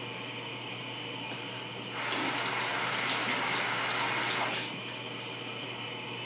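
Bathroom sink tap switched on about two seconds in, running for about two and a half seconds as the double-edge safety razor is rinsed under it, then shut off.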